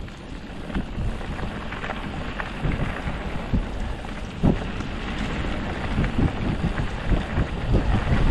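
Wind rumbling on the microphone of a camera carried along a rough trail, with irregular knocks and clatter from the ride over bumps; a sharp knock about halfway through, and the bumps come thicker toward the end.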